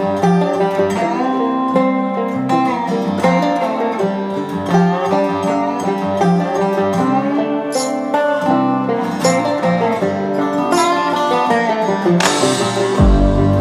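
Background instrumental music led by plucked strings. About twelve seconds in a rising swell builds, and just before the end a deep bass comes in.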